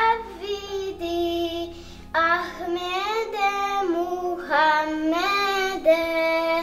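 A young girl singing an ilahija, a Bosnian Muslim devotional hymn, solo in Bosnian, in long drawn-out notes that glide and waver; the line ends on "Muhammede" near the end.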